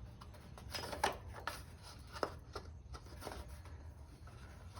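Scattered light clicks and rubbing from parts being handled during an oil change, about half a dozen small knocks over a few seconds, over a faint steady low hum.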